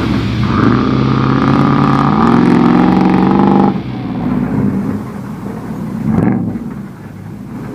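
Off-road vehicle engine revving hard, its note stepping up in pitch about two seconds in, then easing off near the middle, with a short rev surge a couple of seconds later.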